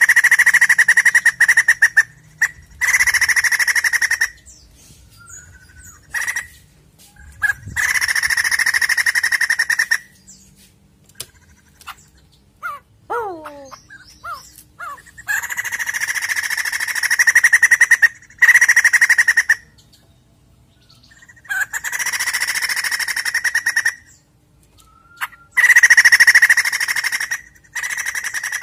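White-crested laughingthrush singing its loud laughing song: about six rapid rattling bursts of one to four seconds each, with short pauses between. About halfway through, a brief run of falling whistled notes.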